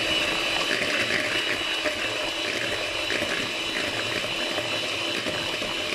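Electric hand mixer running at high speed, its twin beaters whisking powdered whipped cream mix and cold milk in a bowl: a steady motor whine over the churning of the liquid.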